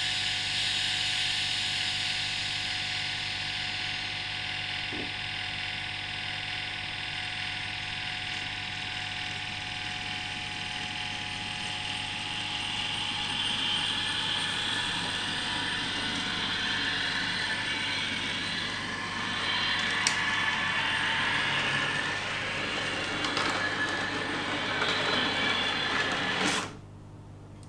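N gauge Class 321 electric multiple unit model with a DCC sound decoder, running along the track: a steady electric running sound from the decoder's speaker, mixed with the model's own motor and wheel noise. It drops away suddenly near the end.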